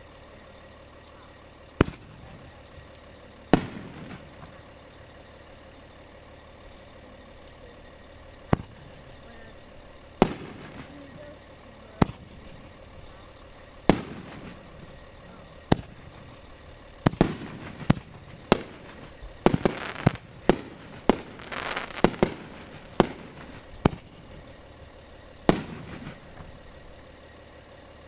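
Aerial fireworks bursting overhead: a string of sharp bangs, a few seconds apart at first and then coming quickly one after another in the second half, with a stretch of crackling about three quarters of the way through.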